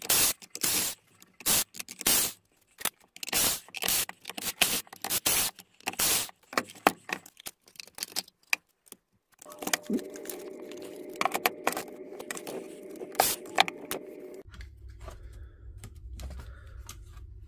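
Clicks, taps and scraping of tools on the plastic and metal housing as a DeWalt DCN660 cordless finish nailer is taken apart. From a little past halfway a steady hum runs under the clicking.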